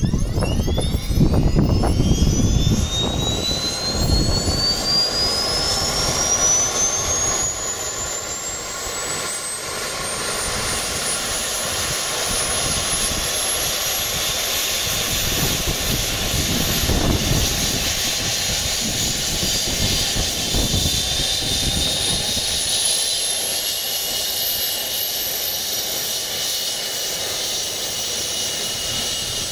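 Airbus H135 rescue helicopter's turboshaft engine starting: a high turbine whine that rises steadily in pitch as the engine spools up. A second rising whine joins about three-quarters of the way through.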